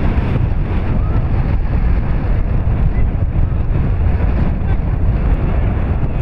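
Wind buffeting the camera microphone: a steady, gusting low rumble.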